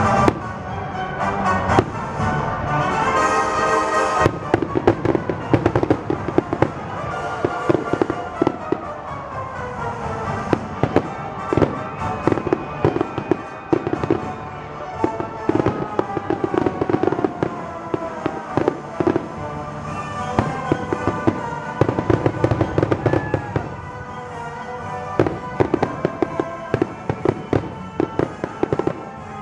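Aerial fireworks bursting in rapid volleys of bangs, over the music that accompanies the show.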